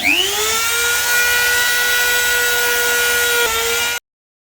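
Small high-speed electric power tool spinning up, then running with a steady high whine. Near the end it dips briefly under load before cutting off suddenly.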